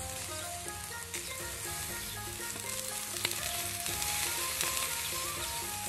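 Pork large intestines stuffed with green onions sizzling on a barbecue grill rack, fat bubbling out of the casings, with a few sharp crackles about a second and about three seconds in.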